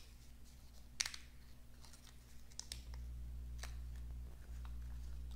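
Faint paper-and-tape handling: light rustles and small ticks as post-it cover tape is peeled off a die-cut cardstock piece on an acrylic cutting plate, with one sharper click about a second in. A low steady hum runs underneath.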